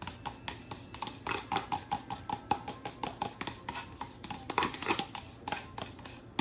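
A fork beats eggs in a mixing bowl, clicking quickly and steadily against the side at about five strikes a second. Each click has a short ring.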